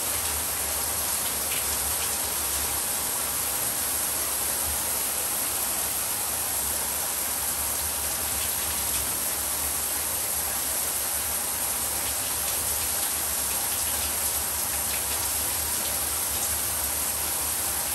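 Water pouring steadily from a 10-inch ceiling-mounted rain shower head, a constant even rush like rainfall.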